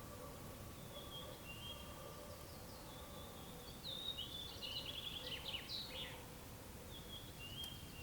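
A songbird singing high, sweeping phrases: a short one about a second in, a longer, busier one with quick falling notes in the middle, and another short one near the end. Beneath it runs a steady faint hum and a low outdoor rumble.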